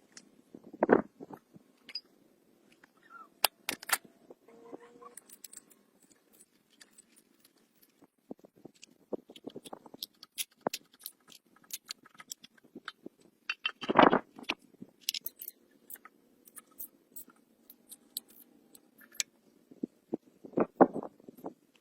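Irregular clicks, taps and knocks, with a few louder thumps about a second in, near the middle and near the end.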